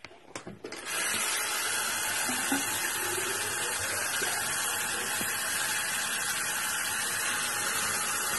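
Bathroom sink faucet turned on, with a few clicks from the handle, then water running steadily from the tap into the basin from about a second in.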